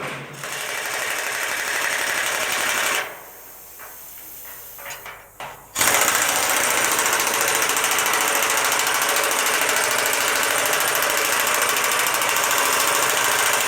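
Pneumatic tool rattling at rapid hammering speed while superheater elements are fixed to the header of a steam locomotive: one run of about three seconds, a short pause, then a long unbroken run from about six seconds in.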